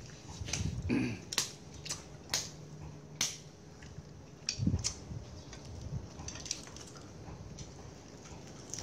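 Eating sounds: scattered sharp clicks and crunches, with a few soft thumps, as fish is picked apart by hand and rice eaten from plates.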